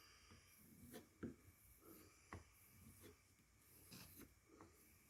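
Faint handling noises: light rubbing with a few soft, scattered taps and clicks.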